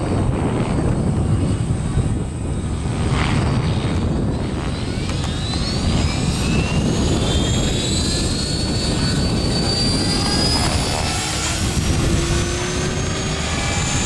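Align T-Rex 500 electric RC helicopter spooling up. The whine of its motor and rotor rises in pitch from about a third of the way in and then holds high, over a steady low rumble.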